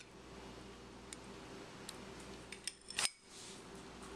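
A metal teaspoon clinking against glass while scooping minced garlic. There are a few light clicks, then one louder ringing clink about three seconds in, over a steady low hum.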